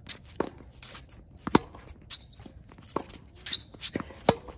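Tennis ball being hit back and forth in a rally on a hard court: sharp pops of the racket strings striking the ball and of the ball bouncing, about five in all. The loudest come about one and a half seconds in and near the end, when the near player hits a forehand. Quick shoe steps and scuffs on the court surface come between the hits.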